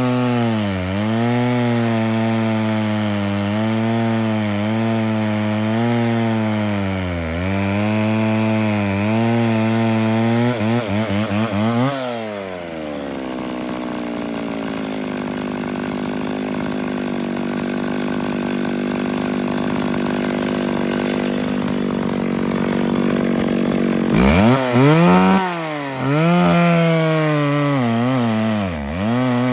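McCulloch Pro Mac 650 two-stroke chainsaw with an ungoverned carburettor cutting through a log, its engine pitch dipping again and again as the chain loads in the wood. About twelve seconds in it revs up sharply out of the cut, then runs steadily and more quietly for about ten seconds. Near the end it revs and bogs into the cut again.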